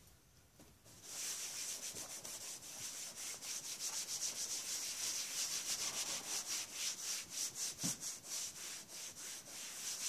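Paper towel scrubbing a plastic cutting mat in quick back-and-forth strokes, starting about a second in.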